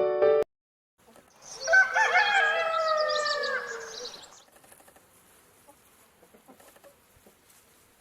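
A rooster crowing once: a single long call of about three seconds with a wavering pitch that tails off at the end, starting about a second and a half in.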